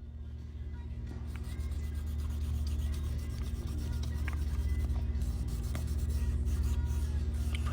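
Background music with a steady low bass, under faint scratching and rubbing as leftover adhesive is scraped off the edges of an iPhone 7 frame.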